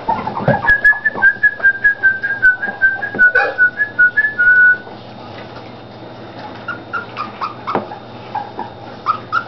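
Olde English Bulldogge puppies whining: a quick run of short, high, squeaky whines that steps slightly down in pitch and stops about five seconds in. After that come softer, scattered whimpers and yips.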